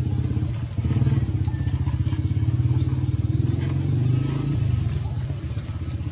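An engine running steadily: a low rumble with a fast, even pulse that dips briefly about a second in and again near five seconds.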